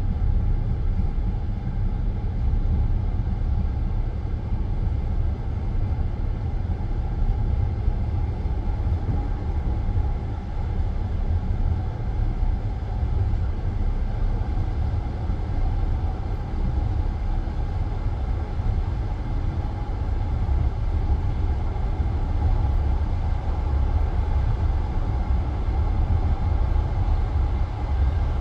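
Steady low rumble of a passenger train rolling along the rails, heard from inside the coach.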